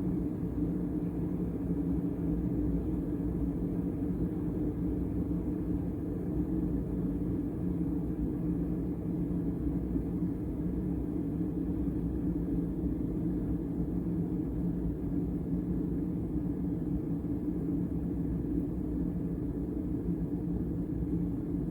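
A Mecity glass and stainless-steel electric tea kettle heating a full pot of water toward the boil: a steady low rumble.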